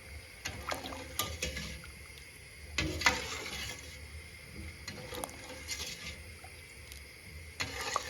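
A spoon stirring pine cones in sugar syrup in a stainless-steel pot, in several short bouts of clinks and liquid sloshing, the loudest about three seconds in.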